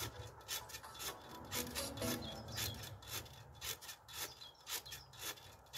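Rebounder mini-trampoline rasping and rubbing with each bounce as someone jumps on it, a short swish about twice a second.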